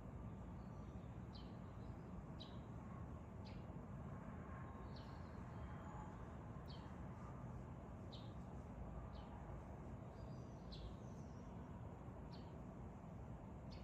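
A small bird chirping at dawn: short, high, downward-sweeping chirps repeated about once every second or so, around ten in all. They sound over a steady low background rumble.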